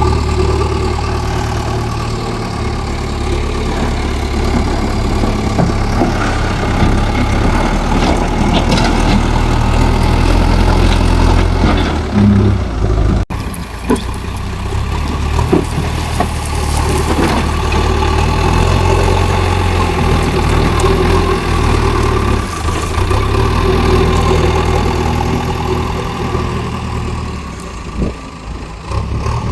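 Diesel engine of a JCB loader running at work, its pitch and level shifting with load, with scattered clanks and knocks. It dips sharply for a moment about halfway through.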